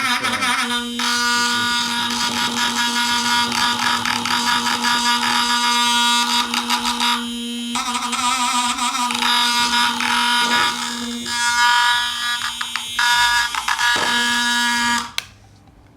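Tiny vibration motor with an offset weight, its bare metal weight rattling against a cup, making a loud, steady, harsh buzz. The buzz cuts off suddenly near the end.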